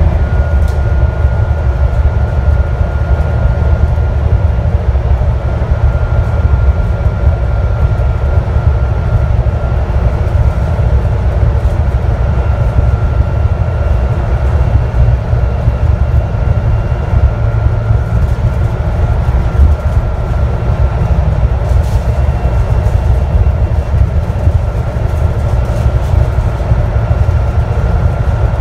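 Scania N250UD double-decker bus with a five-cylinder diesel, heard from the upper deck while cruising steadily at speed. A constant heavy low rumble of engine and road noise runs under a faint steady whine.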